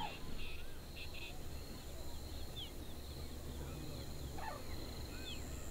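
Evening countryside ambience: a steady high-pitched insect trill, with birds giving short chirps and whistles now and then over a low rumble.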